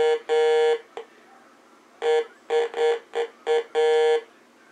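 Heathkit GD-1190 metal detector giving its buzzy, steady-pitched target tone in bursts of beeps, a run of short ones ending in a longer tone, twice: the detector responding to metal, working again after its comparator chip was replaced.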